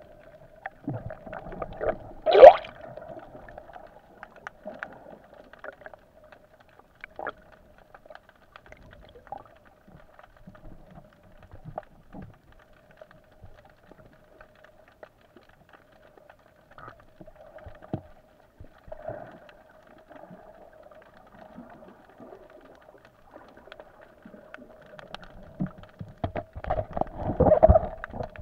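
Muffled underwater sound picked up by a hand-held camera below the surface: a faint steady hum with scattered clicks and knocks, a short loud rising squeal about two and a half seconds in, and a louder run of knocks and thumps near the end.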